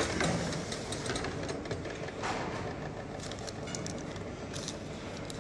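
Steady mechanical hum of a canteen servery with a few faint clicks and light clatter.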